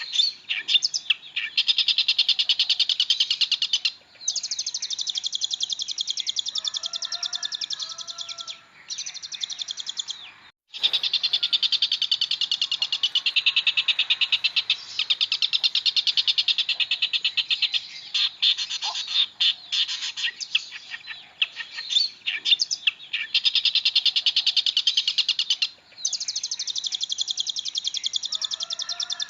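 Long-tailed shrike singing a long, fast chattering song of rapidly repeated high notes in long runs broken by short pauses, with a few lower whistled notes mixed in about seven seconds in and near the end. The sound drops out briefly just after ten seconds.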